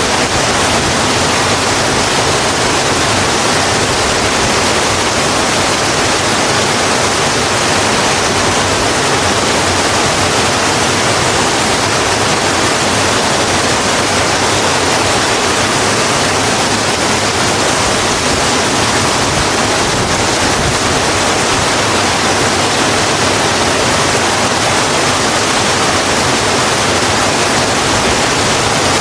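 Steady rain falling on a road: an even, unbroken hiss with no separate drops, thunder or other events standing out.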